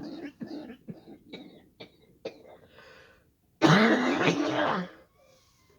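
A person in a hard coughing fit brought on by breathing fireworks smoke: a quick run of short coughs for about three seconds, then after a brief pause one long, loud, hoarse choking cough of over a second.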